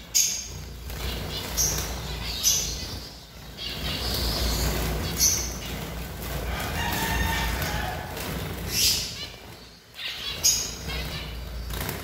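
A flock of white zebra finches calling in short high chirps every second or two, with wings fluttering as birds flit between perches, over a low rumble.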